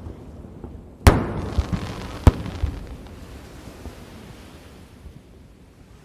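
Aerial firework shells bursting: two sharp, loud bangs about a second apart, with a few smaller pops, and the rumble fading away over the next few seconds.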